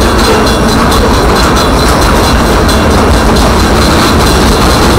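Union Pacific coal train's loaded-looking coal cars rolling past at close range: a loud, steady rumble of steel wheels on the rails.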